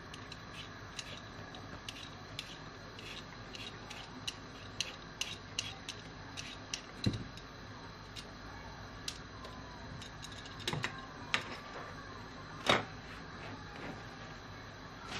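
Hand vegetable peeler scraping the skin off a raw potato in short, quick strokes, with a few louder knocks on the cutting board, the loudest a little before the end.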